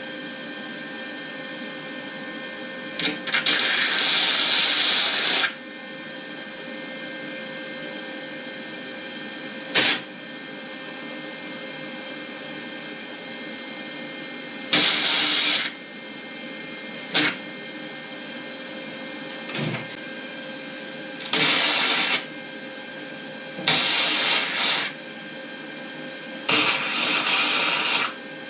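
A power tool worked on sheet metal in short bursts, about seven of them, each starting and stopping abruptly and lasting from a moment to about two and a half seconds, over a steady machine hum.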